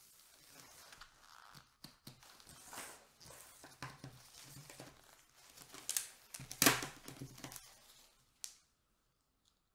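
Disposable gloves rustling as a folding ruler is picked up and unfolded, with sharp clacks as its segments snap open and it is laid down on the table. The loudest clacks come about two-thirds of the way through.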